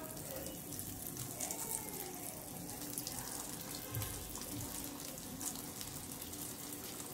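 Batter-coated paneer cubes deep-frying in hot oil: a steady sizzle with constant fine crackling.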